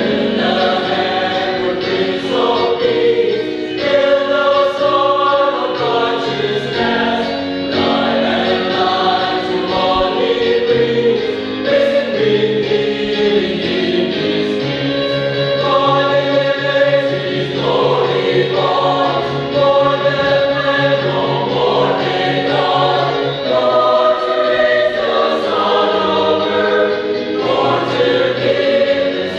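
Mixed choir of young men and women singing a sacred song, loud and steady throughout.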